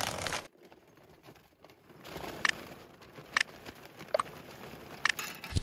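Lump hardwood charcoal poured from its bag into a kamado grill's firebox: a soft pouring rustle with four sharp clinks of lumps landing, about one a second. A short burst of static hiss opens it.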